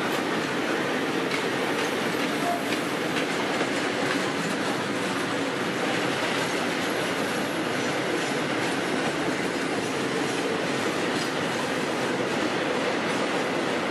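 Freight train of tank wagons rolling past at close range: a steady rumble and rattle of steel wheels on rail, with wheels clicking now and then over the rail joints.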